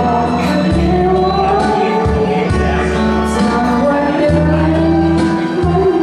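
A woman singing a slow Thai song into a handheld microphone over backing music with a steady bass line.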